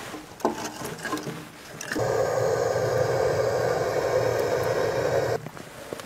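A few knocks as split logs go into a steel firebox. Then a handheld electric blower runs steadily for about three and a half seconds, blowing air into the wood fire, and cuts off suddenly.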